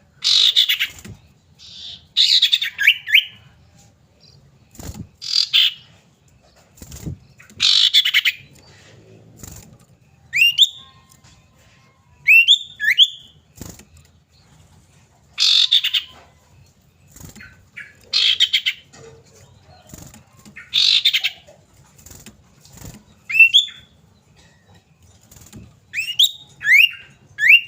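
Common iora calling: harsh, rasping calls of about half a second to a second, every two to three seconds, alternating with short rising whistled notes that come in quick pairs near the end.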